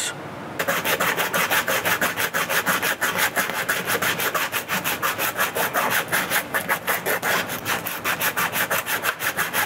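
Rapid back-and-forth scraping of a hand tool on the end of a copper water pipe, about five strokes a second, cleaning up the pipe stub where old solder was melted off.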